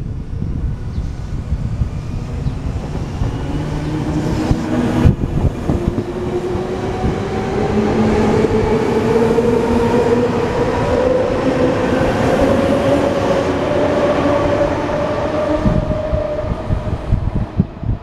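Silver electric commuter train of Tsurumai Line subway type running close by on the rails. Its traction motors whine steadily higher in pitch as it picks up speed, over the rumble and clatter of the wheels, with one sharp knock about five seconds in.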